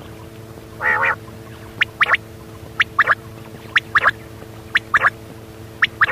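Quail calling: a short, lower call first, then a sharp three-note phrase repeated about once a second, five times, over a steady low hum.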